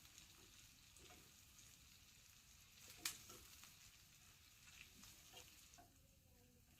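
Ginger and spices frying faintly in ghee in a pan while being roasted until crisp, a steady soft sizzle. A single sharp tap sounds about three seconds in.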